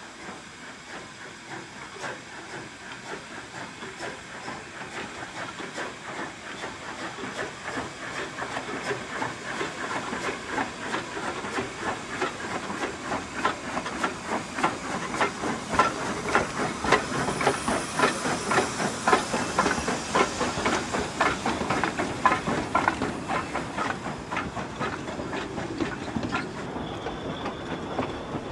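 Beyer-Garratt narrow-gauge steam locomotive No. 87 working past with a train: a steady rhythm of exhaust chuffs over hissing steam from the cylinders, growing louder as it comes by. Near the end the chuffing stops and the coaches roll past.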